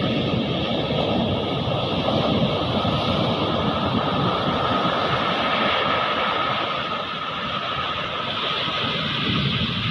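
Steady roar of ocean surf breaking on the beach, mixed with wind buffeting the microphone, dipping slightly a little past the middle.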